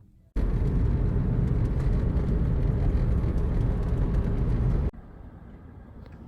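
A car on the move: a loud, steady rumble of engine, road and wind noise that starts suddenly about half a second in and cuts off abruptly near the end, leaving quieter running noise.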